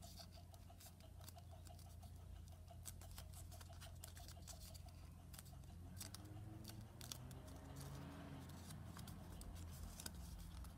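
Faint crinkling and clicking of origami paper being creased and handled between the fingers, over a low steady room hum.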